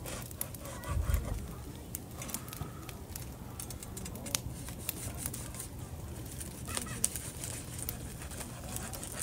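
A large knife slicing through the crusted, crackling skin of a rotisserie-roasted porchetta: scattered crunchy crackles as the blade cuts, with a dull thump on the wooden cutting board about a second in.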